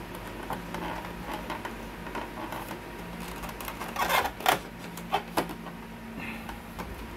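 Plastic clicks and knocks from hands pushing and handling parts inside an opened colour laser printer, with the loudest clatter about four seconds in. A low steady hum runs underneath.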